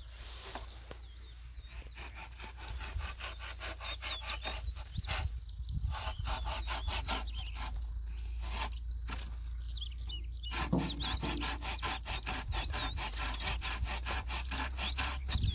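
Hand saw cutting through wood in steady back-and-forth strokes, stopping briefly a few times, with small birds chirping.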